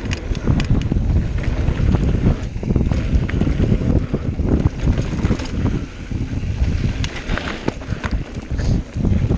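Wind buffeting an action camera's microphone as a mountain bike rides fast down a dirt trail, with tyre noise on the dirt and frequent clicks and knocks from the bike rattling over bumps.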